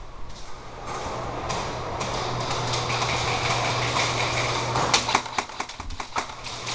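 Airsoft gun firing: a quick run of sharp clicks in the last couple of seconds, over a steady hiss and low hum.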